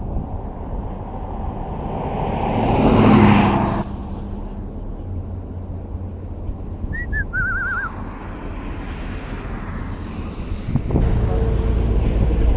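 Car road noise with a steady low rumble. A rushing swell builds to a peak about three seconds in and cuts off suddenly, and the rumble grows louder about eleven seconds in.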